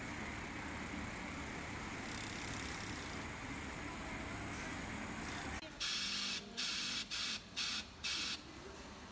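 Steady hum of a garment factory workroom full of running sewing machines. About two-thirds of the way in, an industrial sewing machine fitted with a tape feeder sews in five short bursts, each a loud hiss under half a second long.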